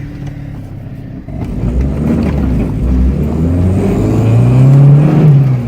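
Boosted car engine accelerating. From about a second and a half in, its pitch climbs steadily and it grows louder, then falls away near the end.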